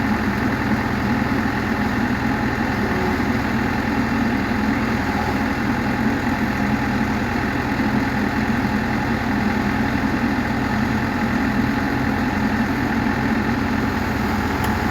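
A heavy diesel engine idling steadily, with no revving.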